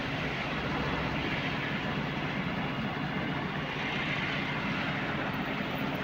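Heavy diesel engine idling steadily, an even mechanical running noise with no change in level.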